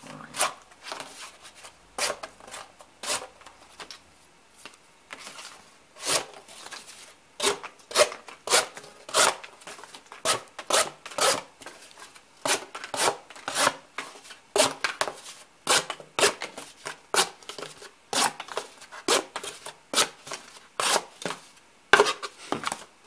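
A thin, freshly sharpened handmade knife with a 17-degree edge slicing through sheets of paper and strips of cardboard: a long run of short cuts, roughly one or two a second.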